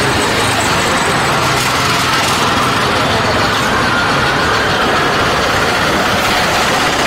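Steady engine and road noise of a moving vehicle, heard from aboard it, with a faint whine running through it.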